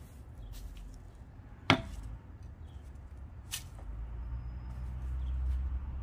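A shovel being driven into garden-bed soil: two sharp strikes, the first about two seconds in and louder, the second about two seconds later. A low rumble builds through the last two seconds.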